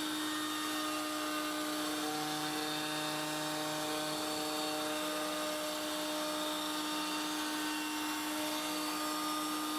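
Table-mounted router running at a steady high pitch while a walnut leg is fed along the fence past a 1/8-inch roundover bit. A fainter lower tone joins between about two and five seconds in.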